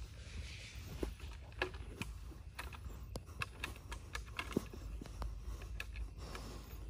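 A hand digging and scraping in a narrow hole in dry, sandy soil, with irregular small crackles and scrapes of dirt and dry roots being pushed aside.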